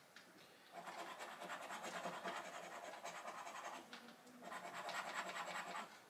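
Scratching the scratch-off coating from a UK scratchcard, in two spells with a short pause between them.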